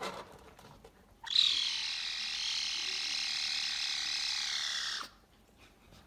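Sci-fi laser beam sound effect: a steady hissing beam that starts suddenly about a second in with a brief sharp peak, holds for nearly four seconds, then cuts off abruptly.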